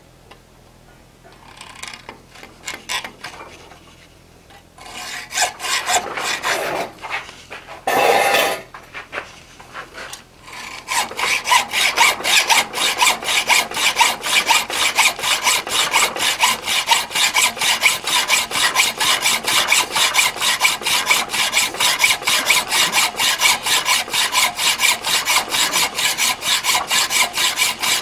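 Hand hacksaw cutting a steel die blank held in a vise. A few light, uneven strokes come first while the blade starts its cut on a corner, then steady, rhythmic sawing from about ten seconds in.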